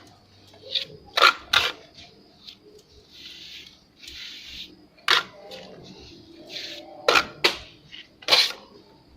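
Steel trowel working cement render: a string of sharp taps and clicks, with two short scraping strokes in the middle.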